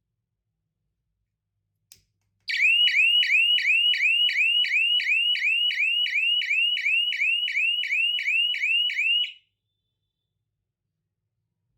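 A homemade transistor fire alarm circuit sounding its alarm: a rapidly repeating rising chirp, about three a second, that starts just after a single click and cuts off suddenly about nine seconds in.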